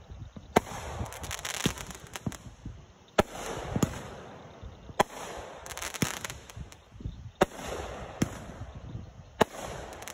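Aerial fireworks going off: five sharp bangs about two seconds apart, each followed by a spread of crackling.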